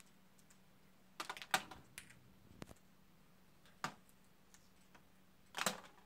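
A few faint, irregular clicks and taps in short clusters: about a second in, near two seconds, near four seconds and a louder cluster near the end, over a faint steady hum.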